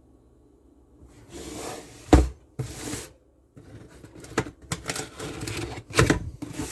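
Handling noise: rustling and scraping with several sharp knocks, the loudest about two seconds in, as a toaster is moved about and set down.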